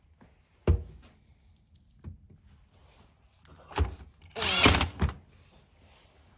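A sharp knock about a second in, then a thud and a cordless drill/driver spinning for about half a second as it drives a screw into the plastic tower-fan housing, its motor pitch wavering, ending in a click.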